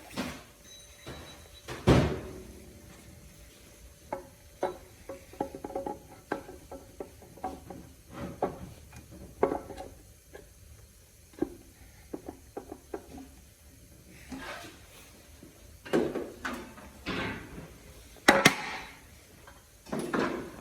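Metal transmission parts and hand tools clanking and clinking as they are handled, in irregular knocks with short ringing. There is a loud clank about two seconds in and two more near the end.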